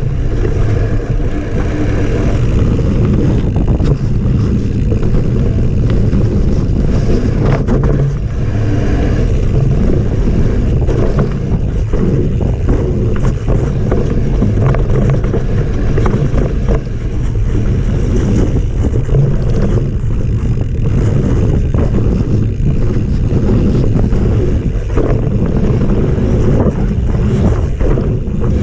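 Mountain bike descending a dirt forest trail, heard on a body-mounted action camera: a steady rush of wind and tyre noise, with frequent clicks and knocks as the bike rattles over the ground.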